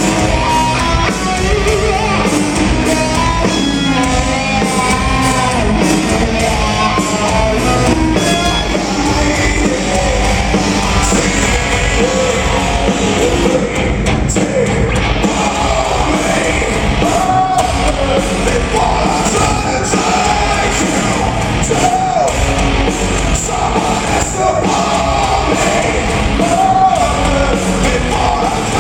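Rock band playing live, loud and steady, with a lead vocal singing over electric guitars and drums.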